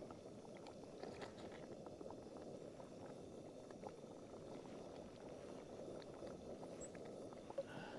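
Faint, steady rushing of a pot simmering over a Trangia methylated-spirit burner, with a few light clicks.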